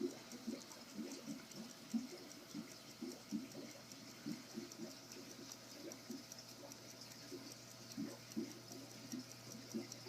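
Brevet Swiss eight-day pocket watch ticking with its back opened: a fast, even, faint ticking, several ticks a second, showing the movement is running. Soft irregular knocks from the watch being handled sound under it.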